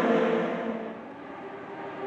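Engine of an IndyCar (2.2-litre twin-turbo V6) fading as the car moves away down the track. Near the end the engine note of the next car grows louder as it approaches.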